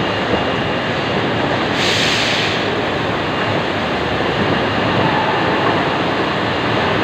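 Steady machinery noise of a timber-processing factory hall. A short burst of high hiss sounds about two seconds in.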